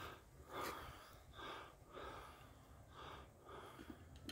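A person breathing hard with effort: a run of faint breaths in and out, about one every half second to second.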